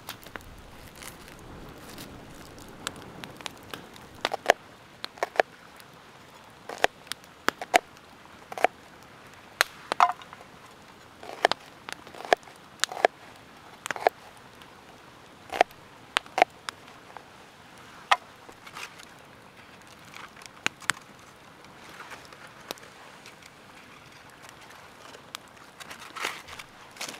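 Wood campfire crackling, with irregular sharp pops throughout, alongside a knife cutting onions on a plate.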